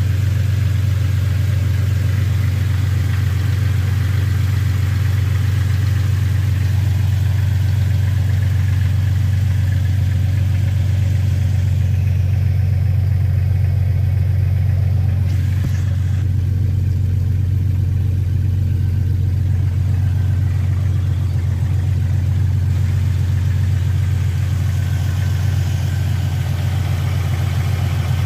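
Jeep Cherokee XJ's 4.0-litre inline-six idling steadily, heard from beneath the vehicle near the exhaust, warming up after a transmission install so the AW4's fluid level can be checked at operating temperature.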